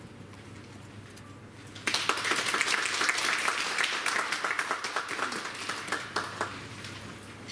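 Audience applauding. The clapping breaks out suddenly about two seconds in, holds for a few seconds, then thins out and stops near the end.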